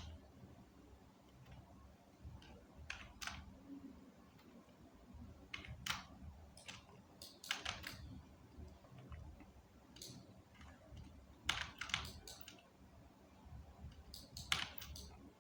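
Scattered clicks of a computer keyboard and mouse, coming singly or in short clusters every second or two over a faint low hum.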